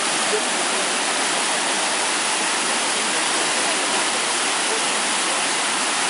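Waterfall cascading down a sloping rock face: a steady rush of white water.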